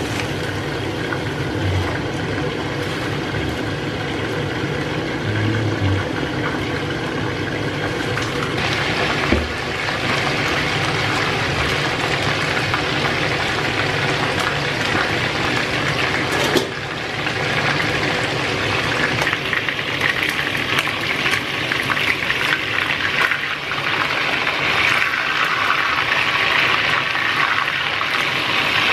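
Water boiling in a stainless steel pot as chopped Portuguese cabbage (couve penca) is put in and stirred. A little over halfway through, this gives way to a brighter sizzle of chicken pieces frying in oil.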